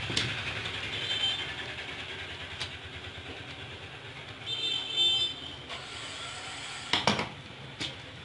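Plastic clicks and knocks from a Samsung SCX-4321NS laser toner cartridge being pried apart by hand and screwdriver, with two short high squeaks, the louder about five seconds in, over a steady low background rumble.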